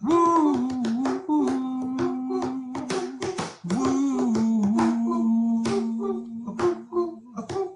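Multitracked a cappella male vocals: long held sung notes in harmony, with small slides in pitch, over a beat of sharp hand claps and finger snaps.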